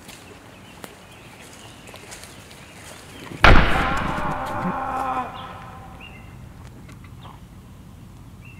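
A sudden loud hit about three and a half seconds in, with a pitched tail that rings on and fades over nearly two seconds.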